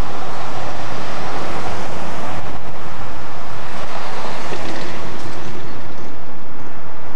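Loud, steady rushing noise of street traffic as a pickup truck pulls up and stops close by, with no distinct engine note or impacts standing out.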